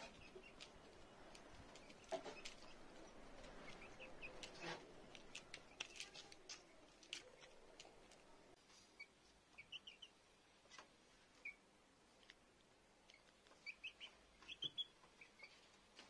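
Young chickens peeping faintly in short clusters of chirps, mostly in the second half. Scattered light clicks come from beaks pecking grain in a plastic feeder dish.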